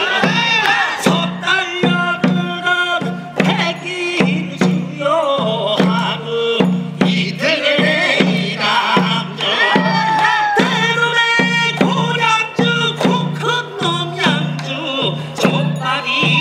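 Korean pungmul farmers' band music: drums keep a steady beat about twice a second under sharp percussion strokes, with a wavering melodic line above.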